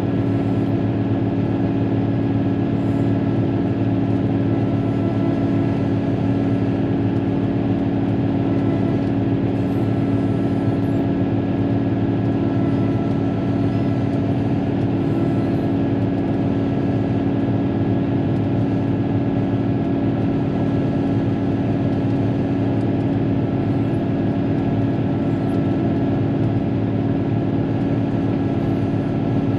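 Caterpillar motor grader's diesel engine running at a steady pitch under load, heard from inside the cab.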